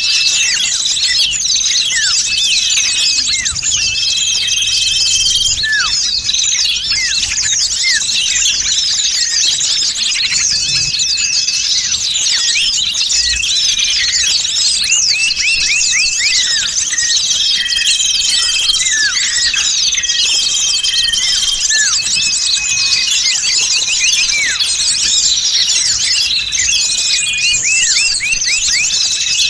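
Dense, busy chorus of many small songbirds chirping and twittering at once, with short high whistled notes recurring through it: a bird-luring (pikat) recording meant to draw small birds in.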